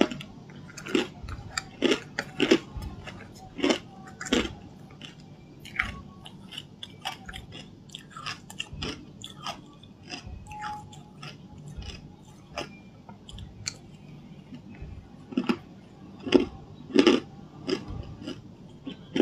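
Close-miked crunching of hard ice chunks being bitten and chewed: irregular sharp cracks and crackles as the ice breaks between the teeth, coming in loud clusters in the first few seconds and again a few seconds before the end, with softer chewing between.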